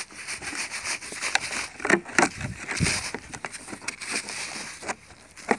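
Blue plastic toy rake and scoop scraping and digging through dry, crumbly soil. A series of scrapes, with the loudest strokes about two seconds in.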